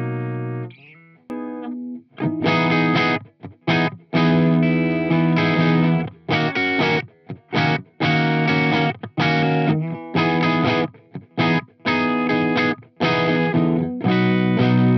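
Bacchus Universe Series electric guitar played clean through a guitar amp, first on the middle-and-bridge pickup setting and then on the bridge pickup alone. A ringing chord dies away, then choppy chord stabs and short runs follow with brief gaps between them.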